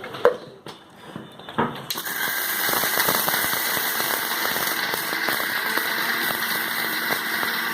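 An electric mixer grinder starts up about two seconds in and runs steadily, grinding dry-roasted coriander seeds, dry ginger and pepper into powder. A few clinks of the jar and utensils come just before it starts.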